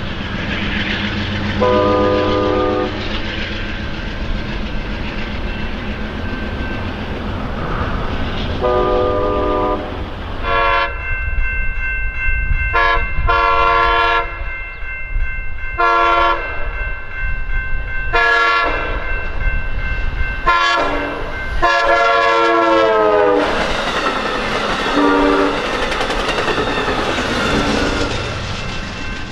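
Amtrak diesel locomotives: engine rumble with two short horn blasts, then a multi-note air horn sounding a run of about eight long and short blasts, the last one held. It ends with the train passing close by in a loud rush of wheel and rail clatter.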